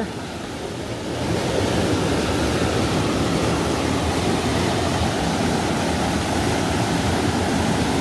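Mountain stream cascading between large boulders into a deep pool: a steady rush of white water, rising a little about a second in.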